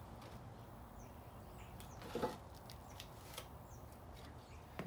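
A few faint knocks and scrapes of a rusted intake manifold being rocked loose on a Lincoln 430 MEL V8 block, the loudest about two seconds in.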